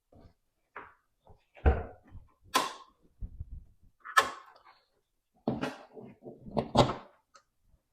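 A series of separate metal clunks and knocks as a car's hood is unlatched, raised and propped open, with cables being handled under it.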